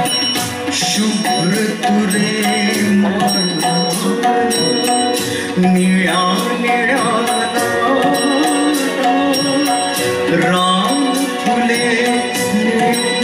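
Male voice singing a Marathi song to instrumental accompaniment, with held sustained tones and a steady percussion beat.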